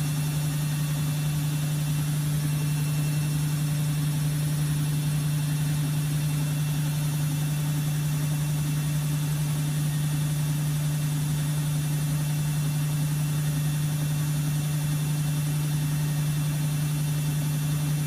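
Bosch WFG2020 front-loading washing machine spinning its drum at a steady high speed: a loud, constant motor hum with a faint hiss above it.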